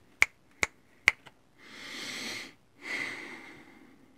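Three sharp clicks in the first second or so, then two breaths close to the microphone, each lasting about a second.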